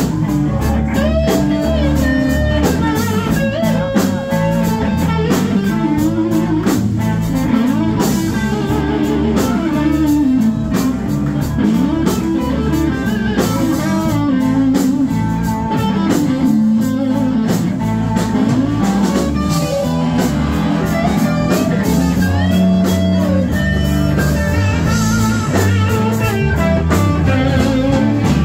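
Live blues-rock band playing loudly: a Gibson Les Paul electric guitar plays lead lines full of string bends over bass guitar and drums.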